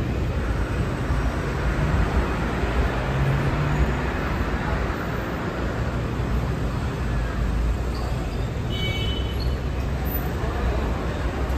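Steady city street traffic noise from cars and buses on the adjacent street, with a low engine hum swelling briefly about three seconds in. A brief high-pitched tone sounds about nine seconds in.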